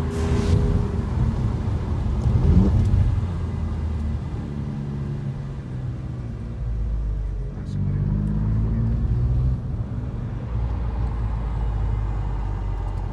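Alfa Romeo Giulia Quadrifoglio's 2.9-litre twin-turbo V6 running as the car drives at low speed, heard from inside the cabin. The revs rise briefly about two and a half seconds in and again from about seven and a half seconds in.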